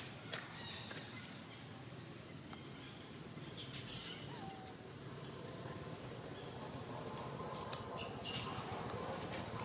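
Infant long-tailed macaque giving short, high-pitched squeals, loudest about four seconds in, in protest at being refused the nipple during weaning, with crackling of dry leaves as it squirms on the ground.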